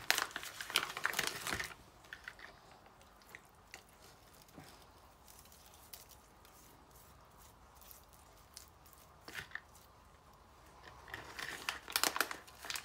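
Plastic crinkling and rustling for about the first two seconds and again near the end. Between them there are only faint scattered handling clicks as spice is rubbed into raw chicken thighs by hand.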